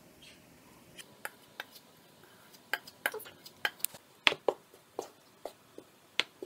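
A wooden spoon knocking and scraping against a plastic mixing bowl while folding melted chocolate and cocoa into a whipped egg-and-sugar mixture: short, sharp, irregular taps, the loudest about two-thirds of the way through.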